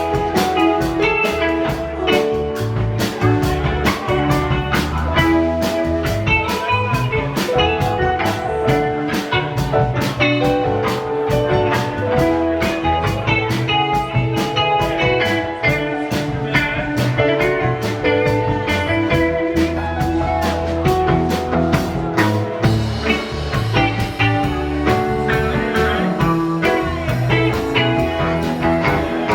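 Live rock band playing an instrumental jam, with electric guitar lines over bass and a steady drum-kit beat. Cymbals wash in more heavily about two-thirds of the way through.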